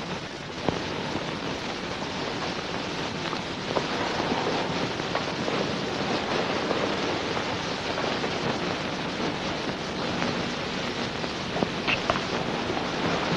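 A steady hiss of background noise, with a faint click about a second in and another near the end.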